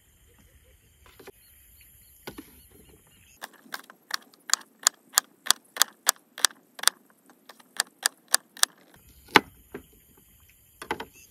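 Kitchen knife chopping an onion on a cutting board: a quick run of sharp taps, about three a second, for some five seconds, with a few single taps before and after.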